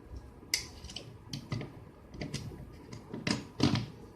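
Plastic clicks and knocks as the trimmer's plastic cover is handled and fitted back onto its body: about eight sharp, irregular clicks, the louder ones near the end.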